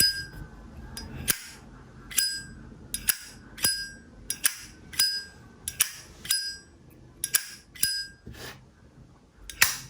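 Vintage Zippo lighter's hinged lid being flicked open and snapped shut over and over, a dozen or so sharp metallic clinks, each with a brief bright ring.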